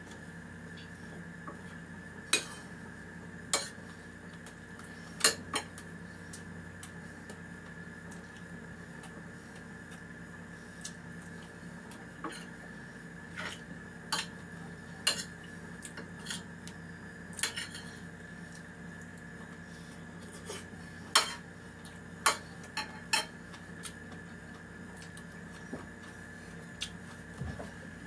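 Spoon and fork clinking against a ceramic plate at irregular intervals during a meal, over a steady background hum.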